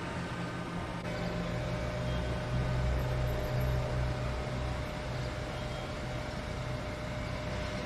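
Steady rumble of an engine running, with a faint whine joining about a second in.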